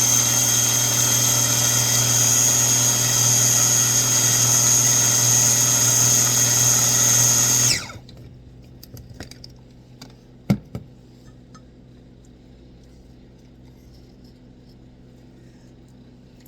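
Electric kitchen appliance motor running steadily at high speed, grinding nuts into a butter that is not yet creamy. It cuts off about eight seconds in. A few seconds later there is a sharp knock and a few lighter clicks.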